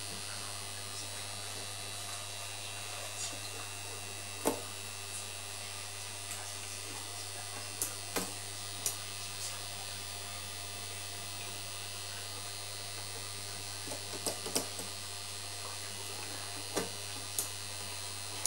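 Small electric motor of a home-built punched card reader running with a steady low buzz, with a scattering of sharp mechanical clicks at uneven intervals from its gear train.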